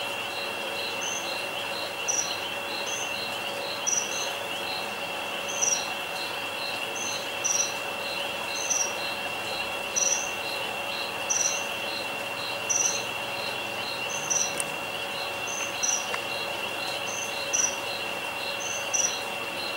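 Night chorus of crickets and other insects. A steady high trill runs under a row of short, even chirps at about three a second, and a louder, higher chirp repeats every second or two.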